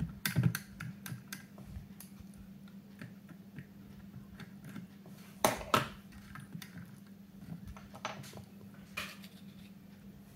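Small clicks and taps of a Hornby 9F model locomotive chassis and a precision screwdriver being handled during reassembly. There is a louder pair of clicks about five and a half seconds in and another about nine seconds in, over a steady low hum.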